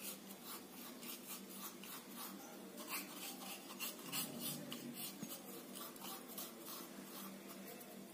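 Fingers scraping and rubbing dry crushed cumin and fennel seeds out of a stone mortar: faint, repeated short scratching strokes against the stone.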